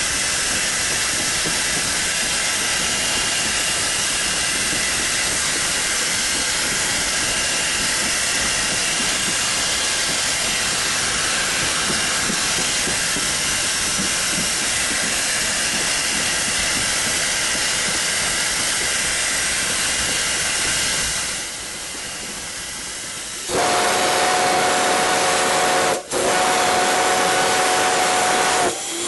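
Steam locomotive running with a steady hiss of escaping steam, then, about three quarters of the way through, its steam whistle sounds two long blasts close together, a chord of several notes.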